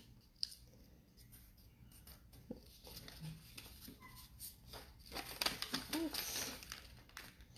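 A sheet of paper being folded and creased by hand: faint rustling with short crinkles and taps, quiet at first and busier over the last few seconds.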